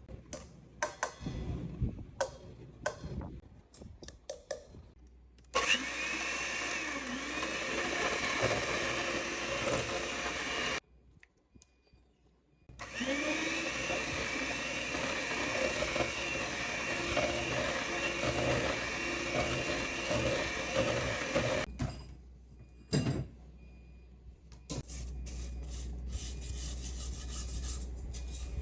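An electric mixer running in two long spells, about five and then nine seconds, with a short stop between, its pitch wavering slightly as it works; clicking and knocking of handling before and after.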